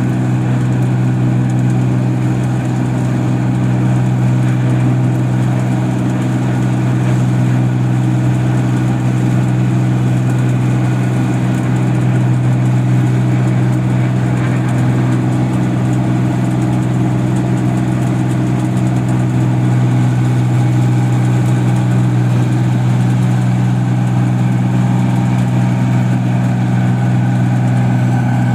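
Engine of a paddy (rice) machine running steadily at a constant speed: a loud, even, deep hum that does not rise or fall.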